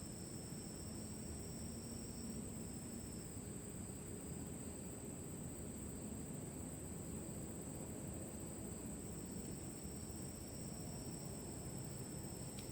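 Insects trilling steadily at a high pitch, one without a break and a second, lower one calling for a few seconds at the start and again near the end, over a low steady rumble.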